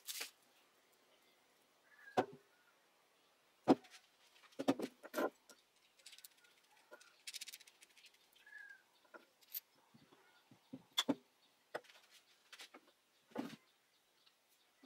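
Small steel parts of a homemade drill press vise handled on a wooden workbench: scattered clicks, taps and knocks as a threaded rod, nut and washers are fitted. A short rattle comes about seven seconds in, with quiet stretches between.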